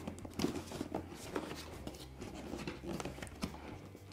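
Faint handling noise of hands fumbling at the rear of an Ares/Begadi OMR SOC SLR airsoft rifle while trying to get it open: scattered small clicks, taps and rubbing, over a low steady hum.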